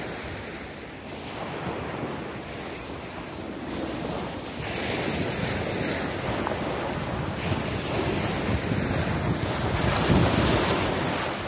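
Small waves breaking and washing up on a sandy, pebbly beach, with wind buffeting the microphone. The sound grows louder as it goes, loudest about ten seconds in.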